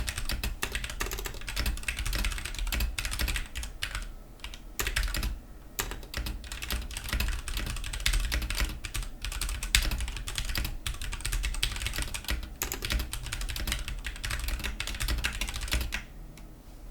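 Fast typing on a Ducky One 2 Mini mechanical keyboard with Cherry MX Silver linear switches, resting on a mousepad: quick runs of key clicks with a couple of short pauses, stopping about a second before the end.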